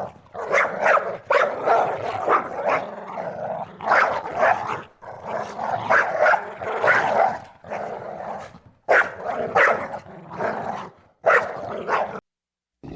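A dog barking repeatedly, in quick runs of short barks with brief pauses between them.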